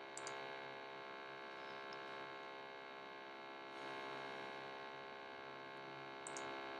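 Faint steady electrical hum of the recording setup, with a short mouse click near the start and another near the end.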